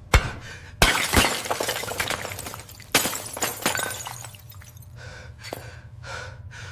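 Glass shattering: a sharp crash about a second in and another about three seconds in, each followed by a spray of falling shards that dies away.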